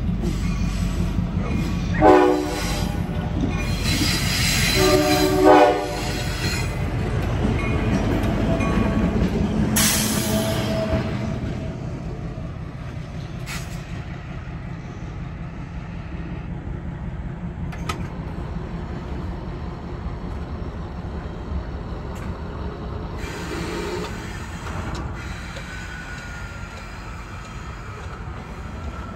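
Diesel locomotive coming through a grade crossing, sounding its horn twice, a short blast about two seconds in and a longer one around five seconds, over the steady rumble of its engine and wheels. The rumble then fades as the train moves off.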